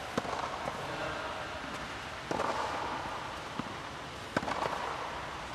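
Tennis balls struck by rackets and bouncing on a clay court: sharp pops, the loudest just after the start and again about four and a half seconds in, with smaller knocks between.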